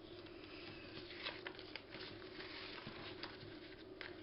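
Faint rustling of paper being handled and adjusted, with scattered light taps and clicks.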